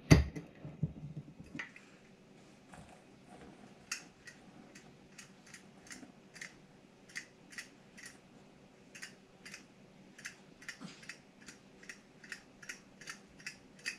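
A sharp clack at the start as a swing-top glass jar's clasp is opened. Then a run of light, sharp clicks, about two a second and quickening near the end, as the glass jar is tipped and shaken to pour flour into a steel mixing bowl.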